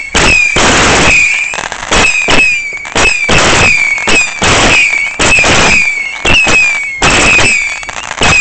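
Two Vulcan Saturn Missile 300-shot batteries firing together: a rapid, unbroken barrage of sharp bangs mixed with many short whistles falling in pitch as the small missiles fly and burst.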